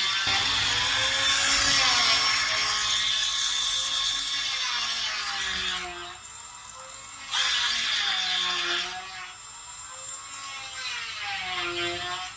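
Brushless cordless impact wrench motor running with a high-pitched whir, its speed rising and falling as the trigger is worked. It eases off twice for a second or more before running up again.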